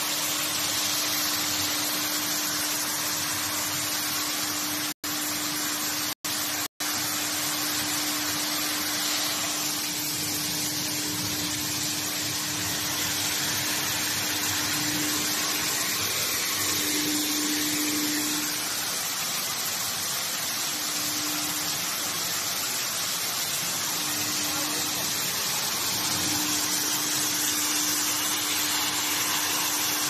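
Mushroom net washing machine running: a steady hiss of water spraying from rows of nozzles onto the net, over a steady motor hum. The sound cuts out for an instant three times about five to seven seconds in.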